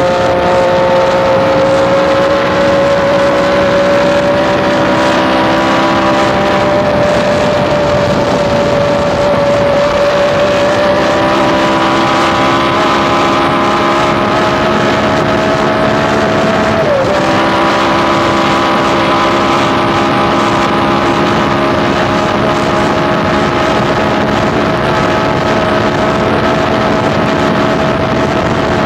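Onboard sound of a Cooper-Maserati's 3-litre V12 at full throttle in fifth gear, at near top speed on a long straight. The engine note is almost constant, climbing only very slowly as wind resistance holds the revs down. About seventeen seconds in, the note dips sharply and recovers: the driver backing off briefly for the S-bend in the middle of the straight.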